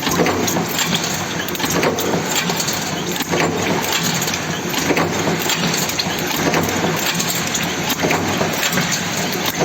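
Cold forging (cold heading) machine running while it forms M6x38 stainless steel flange screws: a steady machine hum under a continuous metallic clatter, with louder knocks every second or two.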